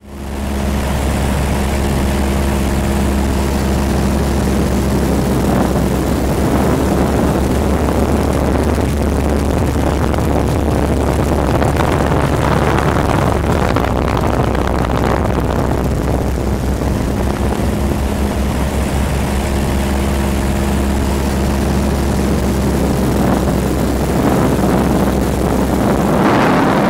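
Light propeller airplane's engine running steadily, heard from inside the cabin: a low engine hum under a broad rush of air noise. The hum sinks back behind the rush for a while in the middle, then returns.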